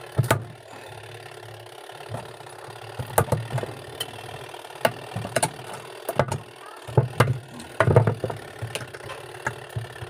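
Pliers gripping and twisting the plastic cap at the centre of a washing machine's pulsator: irregular sharp clicks and scrapes of the metal jaws on plastic, over a steady low hum.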